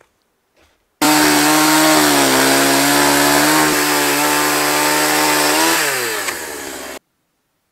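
Gasoline chainsaw running at high revs while cutting a squared timber, its pitch sagging slightly under load. Near the end the pitch drops as the throttle eases off, and the sound starts and cuts off abruptly.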